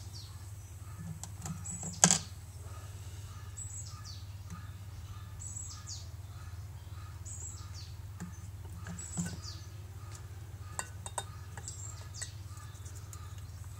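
A small bird chirping, a short high call falling in pitch and repeated about every two seconds, over a steady low hum. A sharp click sounds about two seconds in, and a few softer clicks come later from handling the syringe and bottle.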